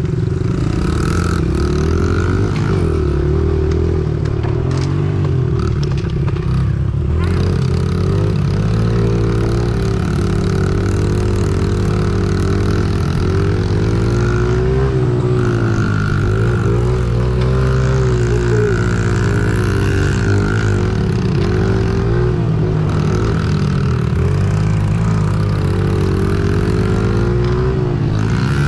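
Honda mini dirt bike's small four-stroke single-cylinder engine under way on a dirt track, its pitch rising and falling over and over as the throttle is worked on and off.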